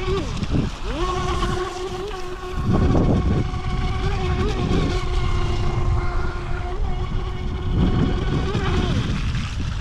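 DEERC brushless RC speed boat's KV2850 brushless motor running with a steady high-pitched whine at speed. The whine dips and glides back up about half a second in as the throttle is blipped, and falls away near the end. A low rushing noise comes and goes underneath, loudest about three seconds in.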